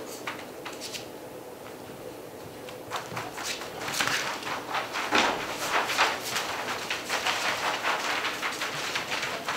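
A litter of Gordon Setter puppies scampering and scuffling on a paper-covered floor: irregular patter, scratching and scraping of small paws and claws, starting about three seconds in and going on busily to the end.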